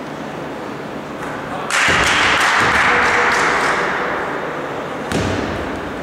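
A basketball free-throw shot: about two seconds in the ball strikes the rim or backboard with thuds and a sudden burst of noise that slowly fades, then a thud of the ball on the gym floor about five seconds in.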